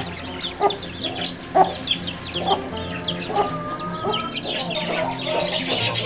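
Chickens clucking and calling, with a dense run of short high peeps throughout.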